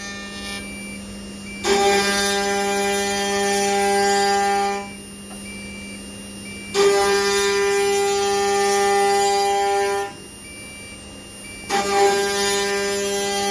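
Multi-spindle CNC wood router carving wooden blanks: the spindles give a steady whine, which gets louder and noisier three times, for about three seconds each, as the bits cut into the wood, then eases back between passes.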